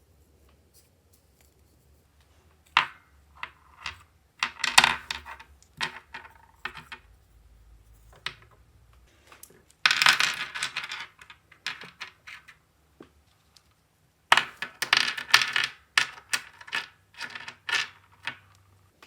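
Small magnetic metal balls clicking and clattering together in quick runs of clicks, in four or so bursts with short pauses between.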